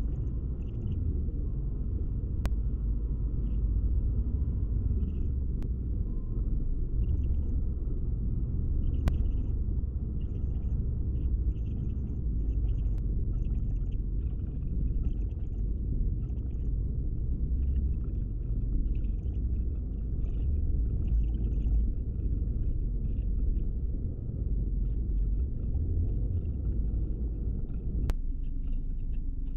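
Steady low rumble of a car cruising at highway speed, heard from inside the cabin: tyre and road noise with the engine underneath.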